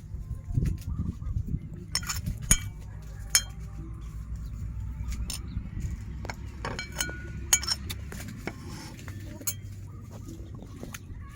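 Scattered sharp clinks of dishes and eating utensils during a meal, with chickens clucking in the background over a low steady rumble.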